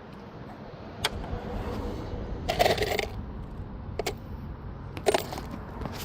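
Metal hardware being handled: a few sharp clinks and a short ringing clatter about two and a half seconds in.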